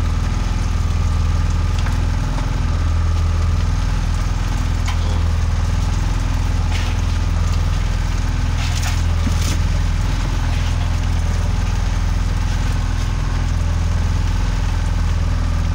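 A boat engine running steadily with a constant low hum. A few faint scrapes of a knife cutting fish on a wooden board can be heard over it.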